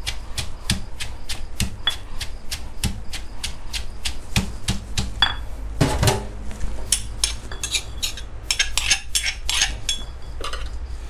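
Stone pestle pounding sliced shallots and lemongrass in a granite mortar to make a stir-fry paste: a steady run of knocks, about four a second.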